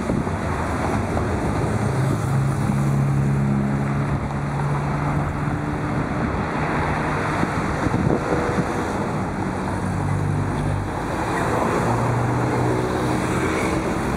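Road traffic: buses and cars driving past, their engine hum swelling and fading twice, over steady tyre and road noise with wind buffeting the microphone.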